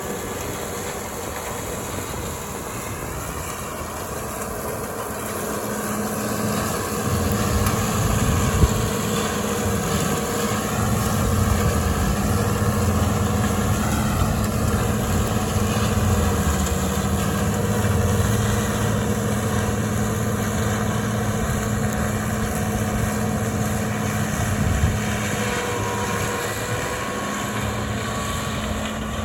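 Farm machinery engine running steadily under a constant load, getting somewhat louder about seven seconds in.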